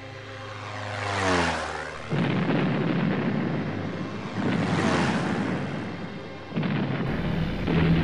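Propeller-driven warplane passing low overhead twice. Each pass swells up and then falls in pitch as it goes by, and a steady engine drone sets in near the end.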